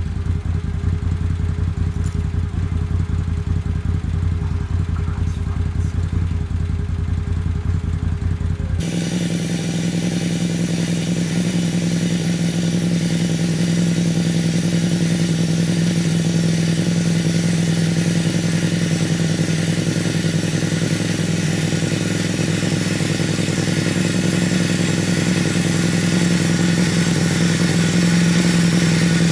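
Can-Am Outlander 850's V-twin engine idling with a low, even pulse. About nine seconds in, the sound switches abruptly to a steady, higher-pitched hum with hiss: the ATV's electric winch running, spooling the new synthetic rope onto its drum.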